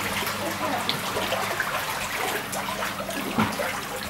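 Knee-deep floodwater inside a house, sloshing and splashing irregularly as someone wades through it.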